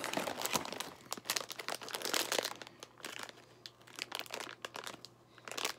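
Crinkly plastic snack bag being handled and turned over in the hands, a dense run of crackles over the first couple of seconds, sparser after that, with a short burst near the end.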